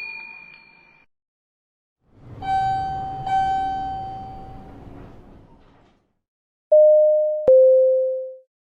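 Bell sound effects: a bell rings, struck twice about a second apart, and fades out over a few seconds. Then a two-note electronic chime sounds, a higher pure tone followed by a lower one, like a doorbell ding-dong.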